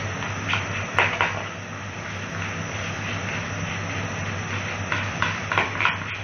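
Wooden spatula scraping against the aluminium pot of a pressure cooker while onions and spice masala are stirred as they fry, a few strokes about a second in and several more near the end. Under it runs a steady hiss and low hum.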